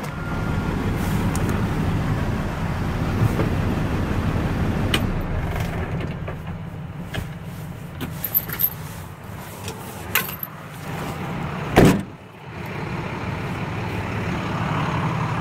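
Tow truck's engine idling steadily, heard from inside the cab, with a few light clicks. About twelve seconds in, the cab door is slammed shut with a loud bang.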